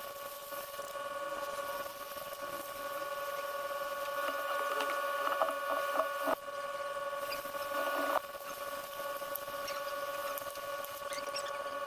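A steady electrical hum, with light scratching and clicking on top.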